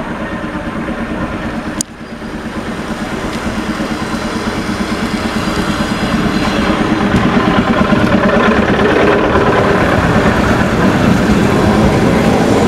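ED2T electric multiple unit pulling away from the platform and accelerating past, its motors and running gear growing steadily louder, with the pitch edging upward near the end. A single sharp click about two seconds in.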